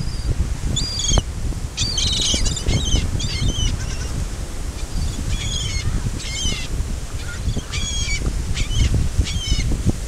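Gulls calling over and over in short, high, squealing cries, many in quick succession, over a low rumble of wind and surf.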